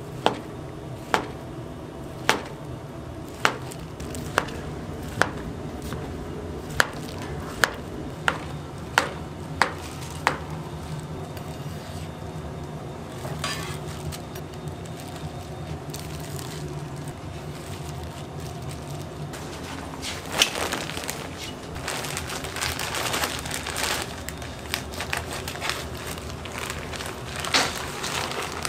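A knife chopping on a wooden cutting board: about a dozen sharp strokes, roughly one a second, that stop about ten seconds in. Over a steady low hum, a stretch of hissing comes later.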